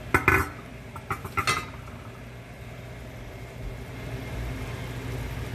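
Stainless steel pot lid clanking against metal as it is set down on the stove: a couple of sharp clinks just after the start and a few more about a second in. A steady low hum runs underneath.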